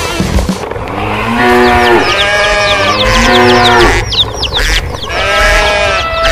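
Cows mooing: three long calls, each about a second long, with many short high chirps over them.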